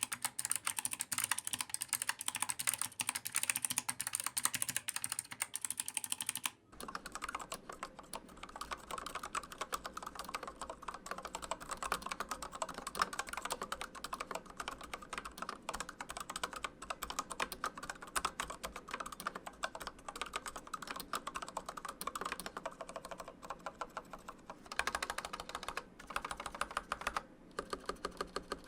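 Typing on a mechanical keyboard: fast, continuous keystrokes clacking. About seven seconds in, the sound changes abruptly to a fuller, lower clack, as a different switch takes over.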